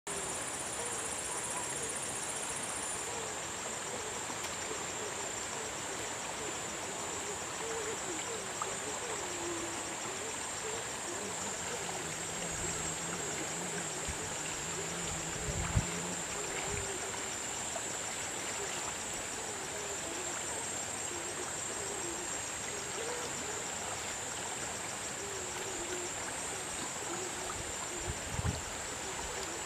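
Shallow stream running steadily over a stony bed, with short low animal calls repeating throughout. A few low thumps come around the middle and again near the end.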